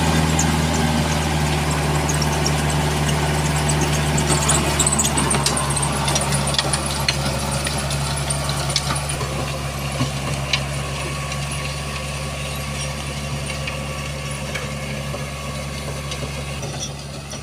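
Tractor diesel engine running steadily at high revs, driving a rotary tiller through a flooded paddy field, with scattered sharp clicks in the first half. The sound slowly grows quieter as the tractor moves away.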